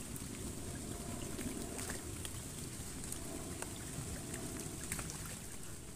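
Steady rain falling on a pond and the waterside plants: an even hiss with scattered sharp drop ticks.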